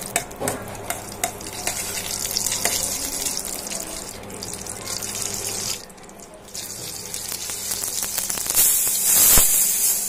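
Melted butter sizzling and bubbling in a stainless steel pan, with a metal spoon clicking and scraping against it. Marinated chicken tikka pieces go into the hot butter in the second half, and the sizzle is loudest near the end.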